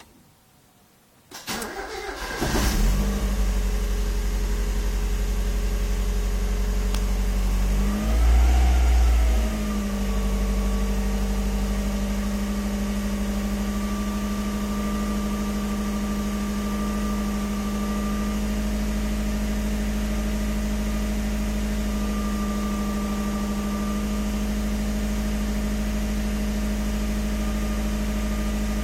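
Ford Laser TX3's 1.6-litre turbocharged B6T four-cylinder starting for the first time after about eight months laid up: a short crank, catching about a second and a half in. It revs up and back down once about eight seconds in, then runs steadily at a fast idle of about 2,000 rpm.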